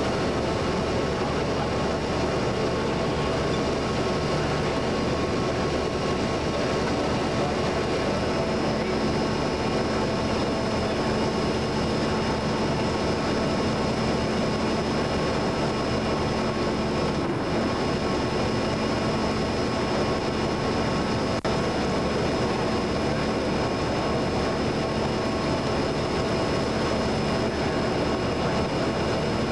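Fellows gear shaper running while cutting a gear under flowing cutting oil: a steady mechanical noise with a few constant tones.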